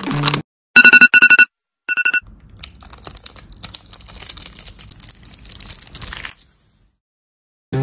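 Three loud, quick electronic beeps and a shorter fourth, followed by about four seconds of faint crackling and crinkling from a thin sheet of ice on a board, which stops suddenly.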